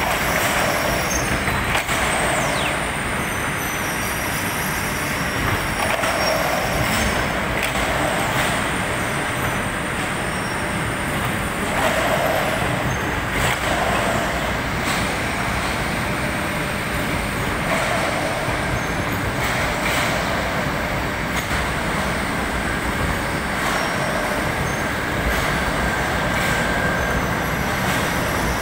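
Textile printing machinery running in a factory: a steady mechanical din, with knocks and a mid-pitched sound coming back every few seconds as the machine cycles.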